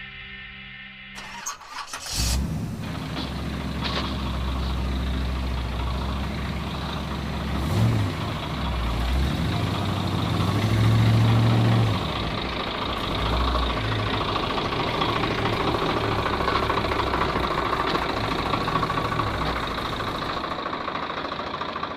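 An engine starting with a few clatters, then idling with a low steady note. It is revved briefly twice, about six and nine seconds after starting, before settling back to idle.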